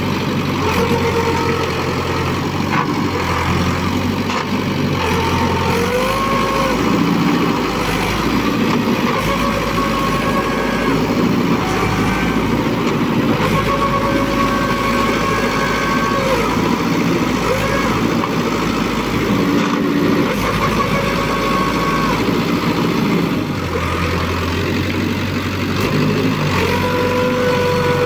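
Mahindra 475 DI XP Plus tractor's three-cylinder diesel engine running hard while stuck in deep mud, its note shifting up and down every few seconds as the throttle is worked to pull the tractor free.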